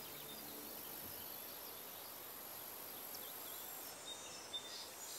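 Faint outdoor field ambience with small birds chirping now and then, more often near the end. A thin steady high hiss drops out about four seconds in.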